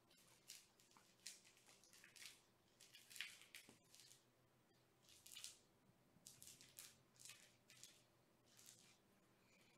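Near silence with faint, irregular rustling and scuffing, a dozen or so short scratchy sounds, as a small cat toy is handled.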